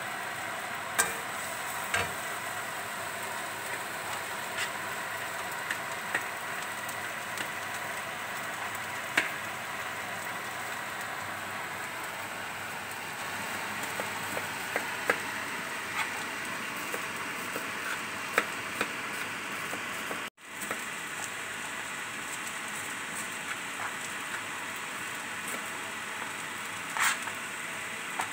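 Tempeh cubes frying in a pan: a steady sizzle with scattered small pops and clicks. It cuts out for a moment about twenty seconds in.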